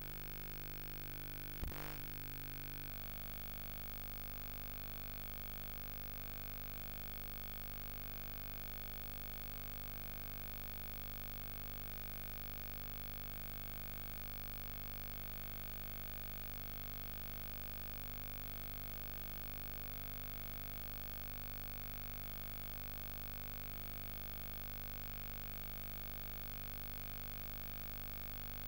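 Steady electrical hum and hiss with no programme sound, the noise floor of a silent tape transfer. There is a short click nearly two seconds in, after which the hum's tone shifts slightly.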